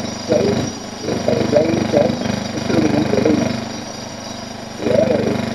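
16mm film projector running, its mechanism making a steady low rattling hum, with muffled voices over it that pause for a moment near the end.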